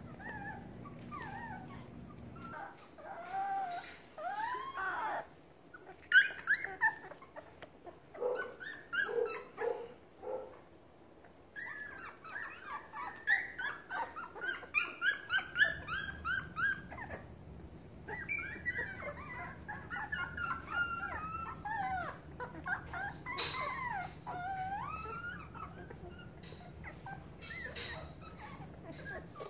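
A litter of young puppies whimpering and crying, many overlapping high cries that rise and fall in pitch, with a quick run of short yelps about halfway through. These are hunger cries: the puppies are calling for their mother to feed them.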